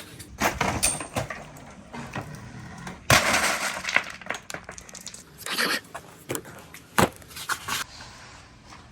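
Glass marbles clattering and clicking down a wooden marble run, with a loud rush of many marbles pouring together about three seconds in and scattered sharp clicks around it.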